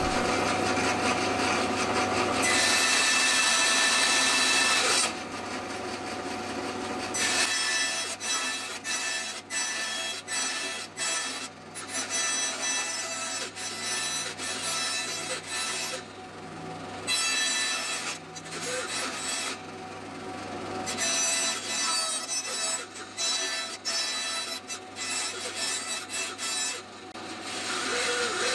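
Bandsaw cutting a wooden block. It saws steadily for the first few seconds, then the sound is broken up into many short cuts with brief pauses between them.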